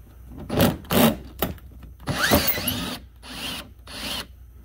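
Cordless drill-driver with a 10 mm socket running in a series of short bursts, on and off, as it backs out a rusty screw.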